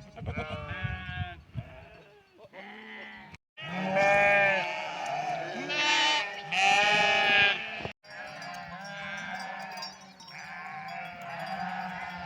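A flock of sheep bleating, many overlapping calls, with the longest and loudest bleats in the middle. The sound cuts out briefly twice.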